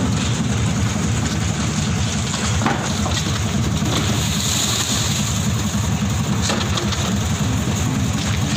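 A heavy engine running steadily with a deep even rumble, with a few faint knocks over it.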